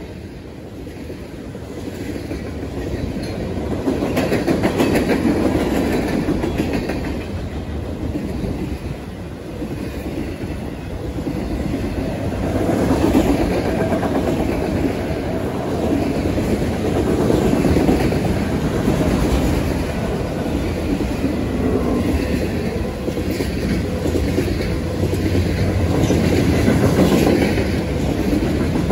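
Freight train cars rolling slowly past close by: a steady rumble of steel wheels on rail with the clickety-clack of wheels over rail joints, the loudness swelling and easing as each car goes by.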